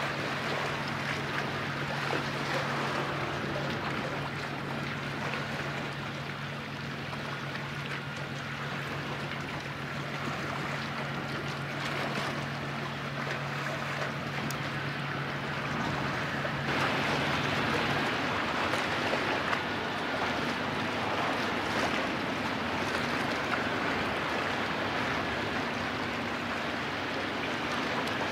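Waves washing and wind in the open air by the sea, a steady noise that gets a little louder about two-thirds of the way through. Under it runs a low steady hum that stops about two-thirds of the way through.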